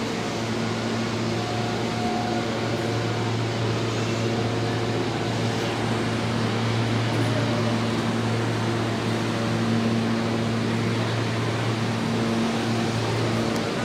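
New York City Subway L train standing in the station, its air-conditioning and auxiliary equipment giving a steady, even hum with a low drone.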